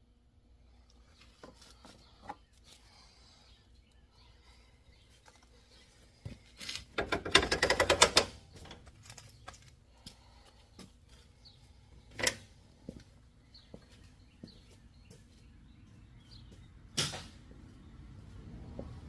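Hand-tool work on a riding lawnmower: scattered clicks and light knocks, with a loud burst of rapid ratcheting clicks about seven seconds in and single sharp knocks near the middle and near the end.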